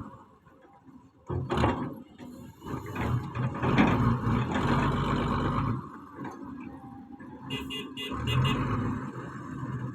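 Heavy earthmoving machine working: engine noise that swells and falls unevenly, with sharp knocks and a cluster of clanks near the end.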